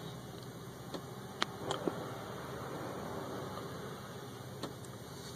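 Steady low hum in a truck cab with a few light clicks, about a second in, around a second and a half to two seconds, and once more near the end; the diesel is not yet cranking while the glow plugs warm before a cold start.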